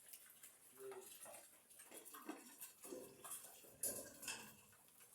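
Faint scattered clinks and knocks, two sharper ones near the end, with a brief animal sound about a second in.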